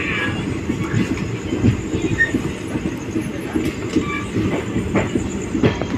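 Passenger train running, heard from inside a coach: a steady rumble of wheels on track with irregular clattering knocks.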